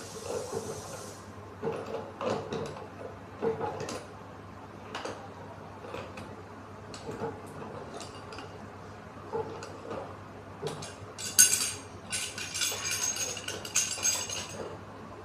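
Metal tools and galvanised-iron pipe fittings clinking and knocking in short irregular taps while a threaded joint is worked on, with a sharper clank about eleven seconds in followed by a few seconds of rattling metal clatter.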